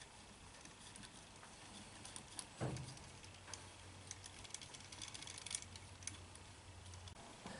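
Faint, scattered light clicks and taps of small metal parts being handled as a Chevy throttle body injection unit's upper half and its screws are fitted by hand, with one louder knock about two and a half seconds in.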